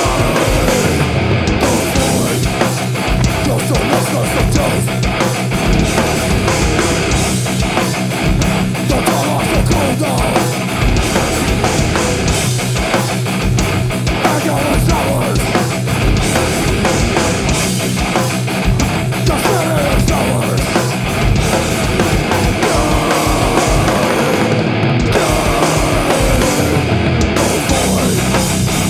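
Hardcore/heavy rock band playing live: electric guitar, bass guitar and drum kit in a fast, loud, dense passage.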